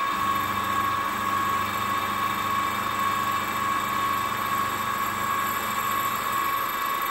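Sieg SX2.7 bench mill running, its 3/4-inch end mill cutting an aluminium bar as the table is fed by hand. It makes a steady whine with a low hum under it.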